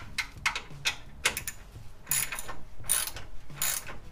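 Hand socket ratchet with a 14 mm socket clicking in several short runs as a bolt holding the motorcycle's front exhaust pipe is backed out.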